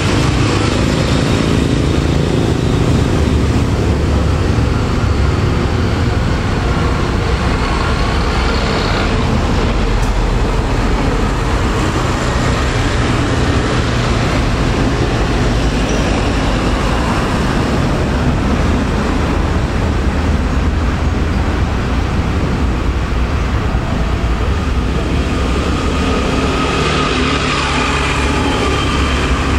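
Diesel locomotive's engine running with a steady low drone as it approaches slowly, mixed with steady road traffic noise.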